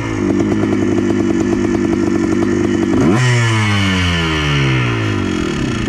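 Yamaha Blaster quad's 200 cc two-stroke single-cylinder engine, freshly rebuilt with a forged piston and being run in, held at steady revs, then revved up sharply about three seconds in and winding down as the throttle comes off.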